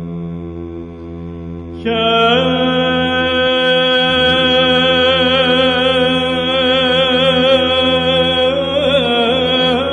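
Byzantine chant: a solo chanter sings a melismatic line over a steady held low drone, the ison. About two seconds in, the voice rises to a louder, long-held note with vibrato, and near the end it wavers through a quick ornamented turn.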